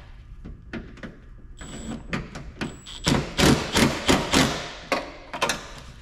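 Cordless Milwaukee drill/driver running a door-latch bolt into a truck's steel door, in a quick series of short bursts with metallic knocks, loudest in the second half.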